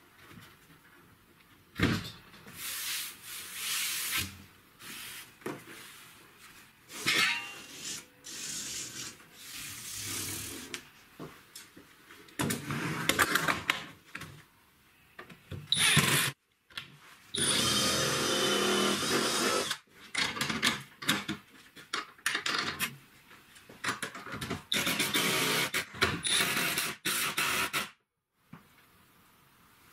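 Woodworking assembly sounds: knocks and scrapes of plywood panels being handled, and several short runs of a cordless driver driving screws, the longest about three seconds midway. The sounds stop and start abruptly.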